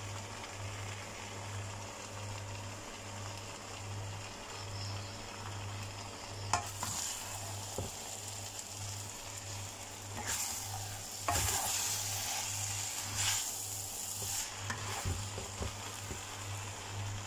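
Rice noodles with beef balls and vegetables stir-frying in a nonstick wok, the spatula stirring and tossing them. The sizzling swells in several surges from about six seconds in, over a low pulsing hum.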